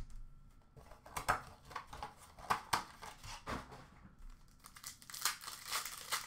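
Wrapper of a hockey card pack crinkling and tearing as it is handled and ripped open: a string of sharp crackles that grows denser near the end.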